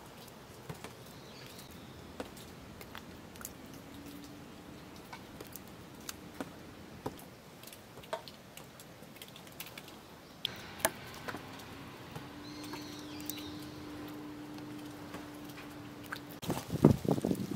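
Light rain dripping: scattered ticks and taps of water drops landing on ice and wood, with a faint steady hum in the background and a couple of faint bird chirps. Loud rustling and thumps come in near the end.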